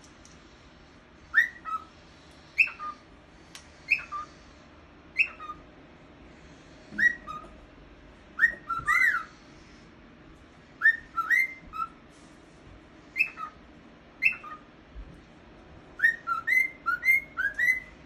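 Cockatiel whistling its song: short whistled notes that drop in pitch, repeated about once every second or so, turning into a quicker run of notes near the end.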